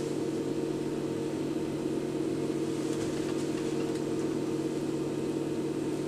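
Steady hum of a small electric motor, with a few low, even tones.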